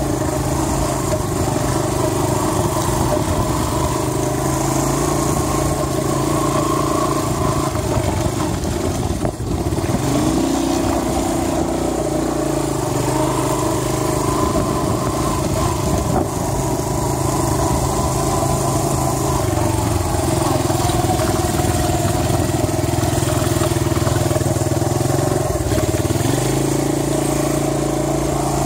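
ATV engine running under way. The engine note dips briefly about nine seconds in, climbs again, and changes pitch again near the end.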